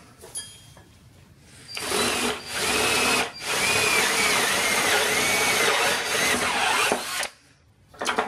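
Power drill with a twist bit boring right through a wooden block. It starts about two seconds in, breaks off briefly, then runs steadily for about four seconds, its whine wavering in pitch, and stops suddenly.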